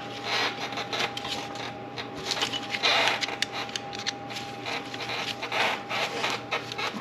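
Hand work on plastic and rubber engine-bay parts: irregular clicks, rubbing and scraping as a hose is worked loose from its fitting.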